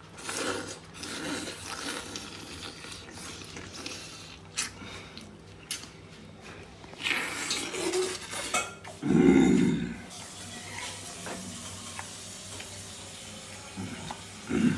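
Pots, dishes and utensils clattering and clinking in irregular clicks and knocks, with a loud, low muffled sound lasting about a second around nine seconds in.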